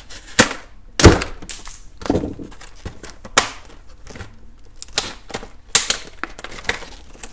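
Stiff clear plastic clamshell packaging being cut and pulled apart by hand: a run of irregular sharp cracks and snaps, the loudest about a second in.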